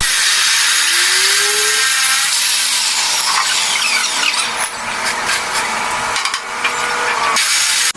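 Angle grinder grinding metal: a loud, steady hissing grind with a whine that shifts in pitch as the disc is pressed into the work.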